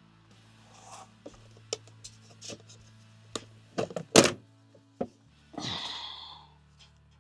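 Tools and a heavy battery cable being handled on a work surface: a run of scattered clicks and knocks, the loudest about four seconds in, then a short scraping rustle.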